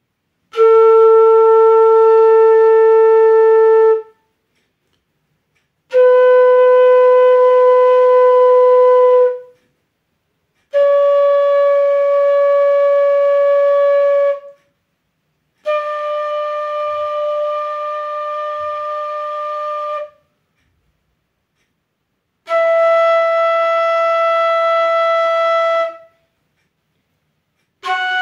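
Bansuri (bamboo transverse flute) playing long held sargam notes: five sustained tones, each about three and a half seconds with a short break between, stepping up the scale from Sa to Pa. The fourth note is softer and slightly unsteady in volume.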